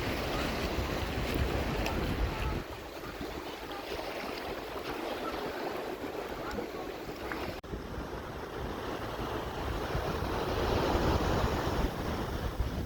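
Mediterranean sea waves washing in, with wind buffeting the microphone in gusts, strongest in the first couple of seconds and again near the end. The sound breaks off abruptly about seven and a half seconds in and resumes.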